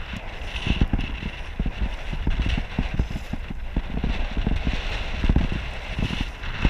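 Wind and water buffeting a GoPro in its waterproof housing on a paddled inflatable kayak: an uneven low rumble of rapid thumps over a steady hiss.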